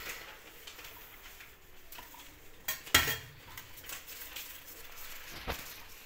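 Metal muffin tin being handled on a countertop: one sharp metallic clink about three seconds in and a lighter knock near the end, over soft handling noise as paper liners are pressed into its cups.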